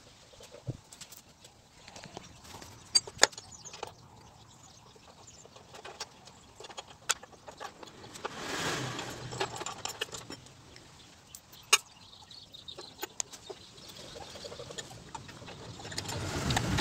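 Scattered sharp metal clicks and knocks as the painted sheet-steel housing of a grass chopper is handled and fitted during assembly, with a swell of noise about eight seconds in and a low rumble building near the end.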